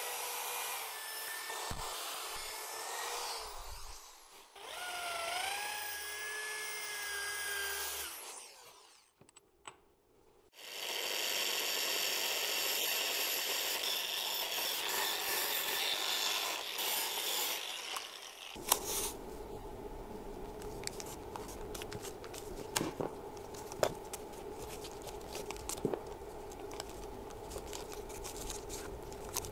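A wire brush in a power drill whirs and scrapes inside the grooved steel pulley of a car alternator, its pitch gliding as the speed changes, cleaning off rust and dirt. After a short pause a spinning wire wheel scrapes steadily over a small metal bracket. Then comes a quieter stretch of scattered clicks and crackles as masking tape is wrapped by hand around the alternator rotor.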